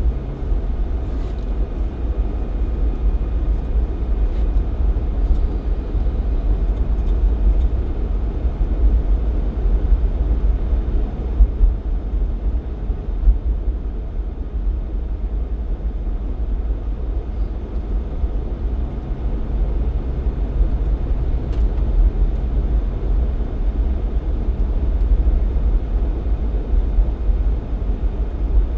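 Jeep Cherokee XJ driving at a steady pace: a constant low rumble of engine and road noise with a faint hum that comes and goes.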